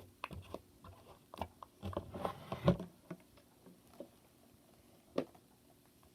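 A run of small irregular clicks and knocks of objects being handled, loudest about two and a half seconds in, with one more sharp knock about five seconds in.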